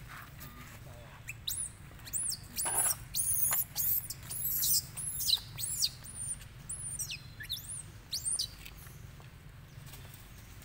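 Macaque squealing: a run of short, high-pitched squeaks that rise and fall in pitch, starting about a second in and stopping before the end.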